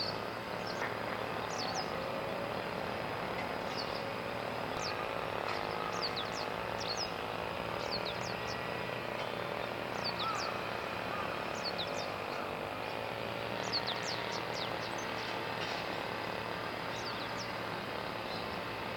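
Small wild birds calling with many short, high chirps that drop quickly in pitch, scattered through, over a steady background rumble.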